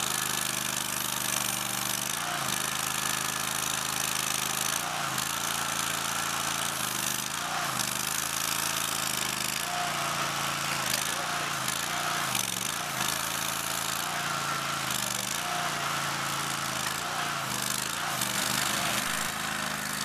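Engine of a Boxer 530 mini loader running steadily while powering a backhoe attachment digging dirt. Its pitch sags briefly several times as the digging loads it, with short high whines now and then.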